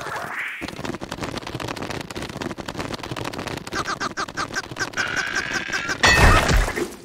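Fast, dense rattling clatter of cartoon sound effects as the red larva wriggles, pinned to the ground by a nail. A pulsing high squeal joins it from about the middle, and a louder burst comes near the end.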